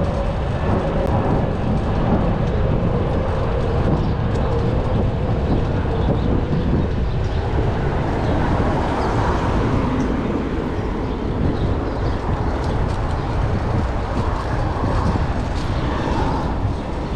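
Steady city traffic noise with a deep rumble. A passing vehicle's tone sinks slightly in pitch over the first few seconds.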